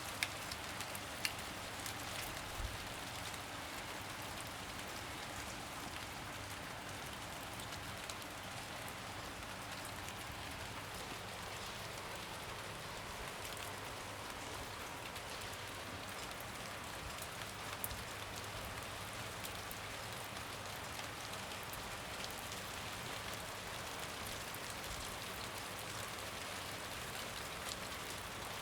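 Steady rain falling, an even hiss with occasional sharper drips and drop clicks, a few of them in the first couple of seconds.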